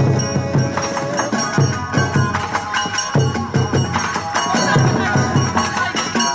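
Bon odori dance music with a steady, evenly repeating beat and percussion.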